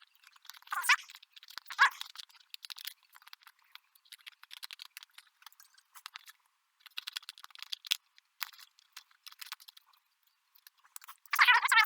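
Scissors snipping and crackling through a paper template, irregular small cuts and rustles. A few short wavering high-pitched whine-like sounds come near the start and again near the end.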